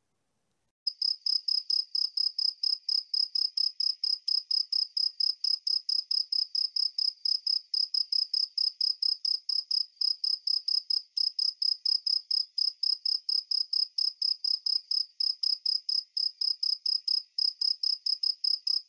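A cricket chirping steadily, about four even chirps a second, starting about a second in.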